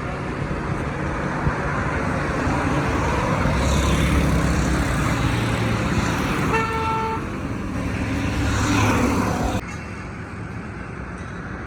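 Road traffic going past close by, engine rumble swelling as vehicles pass, with one short vehicle horn toot about seven seconds in. The sound cuts off suddenly a little before the end, leaving quieter road noise.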